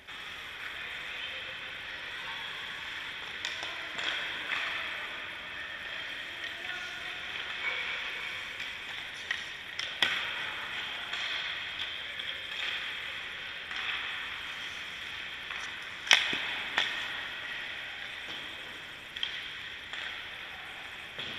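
Ice hockey shooting practice: a steady hiss of skates and the rink, broken by several sharp cracks of sticks shooting pucks and pucks striking the goalie, the loudest about three-quarters of the way through.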